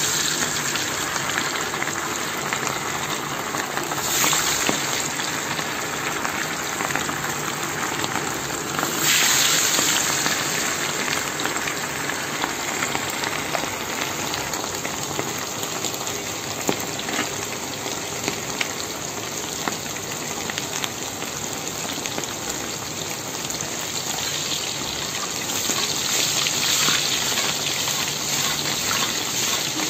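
Raw minced-meat meatballs frying in hot oil in a kazan, with a steady loud sizzle. The sizzle flares up each time another meatball is lowered into the oil: right at the start, around four and nine seconds in, and again near the end.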